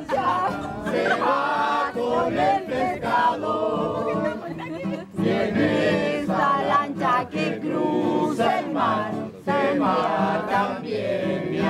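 A group of people singing together along to an acoustic guitar, several voices at once.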